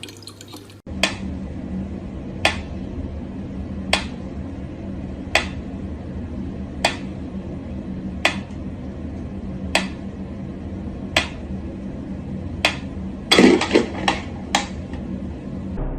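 Sharp clicks or taps at a regular pace, about one every second and a half, over a steady low hum, with a quick cluster of several knocks near the end.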